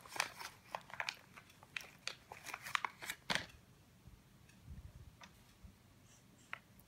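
Small snack wrapper crinkling as it is opened and handled: a quick run of crinkles and rustles for the first three seconds or so, then only a few faint handling clicks.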